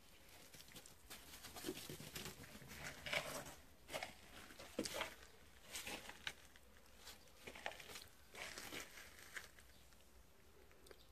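Faint, irregular rustling and scuffing on dry leaf litter and dirt, a string of short soft noises.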